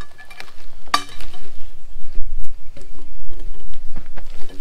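Scattered metallic clinks and knocks, with one sharp strike about a second in, from handling a steel log-rolling bar, over a low rumble.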